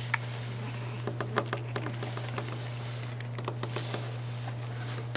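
Light, scattered clicks and taps of puppies moving about on a wooden deck, over a steady low hum.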